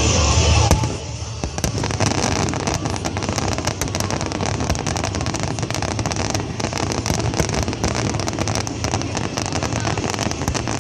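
Fireworks display going off in dense, rapid crackling pops. Music is heard briefly and cuts off about a second in.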